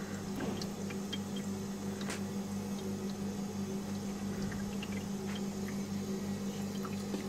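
Ice maker humming steadily, with a low throb pulsing a few times a second and faint scattered ticks and drips, during its defrost cycle as the ice on the warming evaporator thaws.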